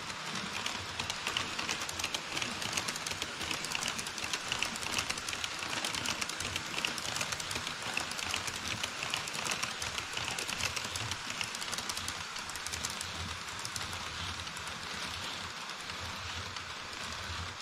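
HO-scale model trains (freight tank cars, an E5 Shinkansen model and container wagons) rolling across a truss bridge on Kato Unitrack. Their small metal wheels make a steady, fast clicking rattle over the rails and joints, easing a little near the end.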